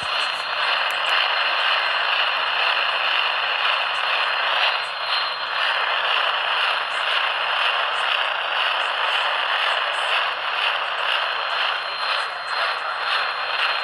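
Steady radio static: an even hiss with faint crackles and a thin, high steady whistle underneath.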